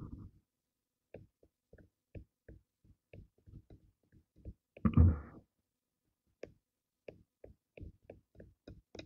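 Microfiber towel rubbing over a hard plastic graded-card slab in short strokes, about three a second, buffing off Meguiar's PlastX polish to clear fine scratches and fog from the case. One louder rustle about five seconds in.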